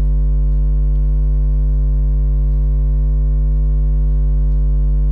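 Steady electrical mains hum picked up on the recording: a constant low buzz with fainter higher tones stacked above it.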